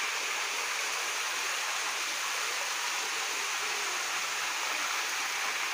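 Steady rushing and splashing of a jet of water pouring into a round concrete fish-culture tank: fresh water going in during a water change, done when gas builds up in a bottom-clean tank.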